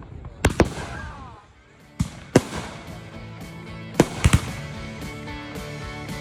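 Fireworks going off in sharp bangs, several in quick pairs, with a short whistling glide after the first pair. Steady music comes in about halfway through, under the bangs.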